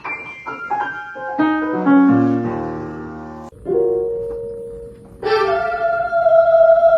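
Piano notes: a quick run of single notes, then a low held chord and one more note. About five seconds in, held tones begin.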